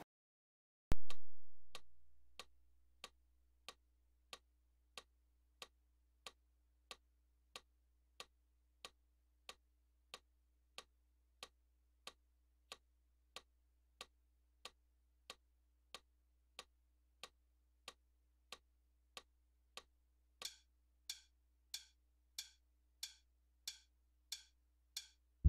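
Metronome clicking steadily at about three clicks every two seconds, after a single thump about a second in. In the last five seconds the clicks get louder and brighter, a count-in before playing.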